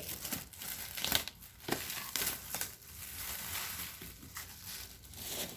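Plastic wrapping crinkling and crackling as it is handled, in irregular bursts of rustle.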